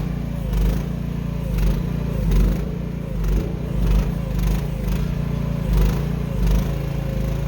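Mini excavator engine running steadily under load, with a wavering whine above it and swells in loudness about once a second as the machine moves a trailer by its hitch.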